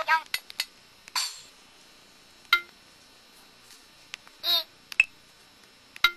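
Short electronic blips and chimes from a Samsung SCH-X750 mobile phone's built-in sound effects and key tones. A quick run of clicks near the start is followed by single short tones spaced a second or more apart.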